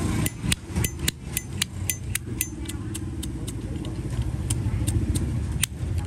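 Vintage chrome Zippo lighter being handled: a quick run of sharp metallic clicks, about four a second at first and then sparser, from its hinged lid and case. A steady low background rumble runs underneath.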